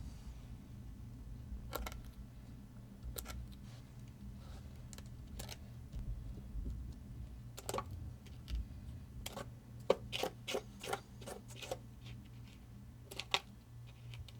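Scattered, irregular clicks and knocks of hands working at a skate-repair sewing machine, over a steady low hum. The clicks bunch together about two-thirds of the way in.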